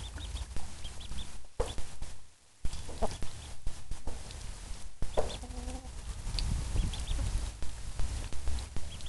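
Ducklings peeping in short, high notes while they dabble in water for dried mealworms. Louder, lower clucking calls come from hens a few times, about one and a half, three and five seconds in.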